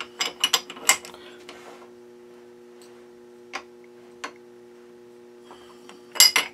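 Metal-on-metal clicks and clanks from a lathe tailstock being moved and set by hand: a quick cluster at the start, two single clicks in the middle, and another cluster near the end, over a steady low hum.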